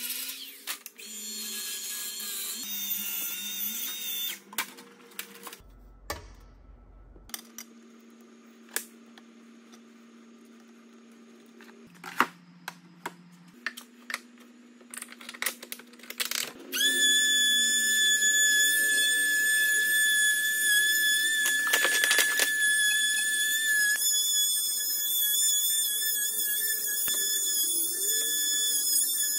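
A cordless angle grinder with a sanding disc runs against sheet steel at the start, then comes a quieter stretch of clicks and knocks as parts are handled and clamped. About two thirds of the way in, a cordless trim router mounted upside down under a small steel router-table plate starts and keeps running with a steady high whine while it cuts into wood fed past the bit.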